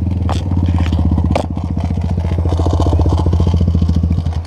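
Sinnis motorcycle engine idling steadily, with a couple of light clicks in the first second and a half.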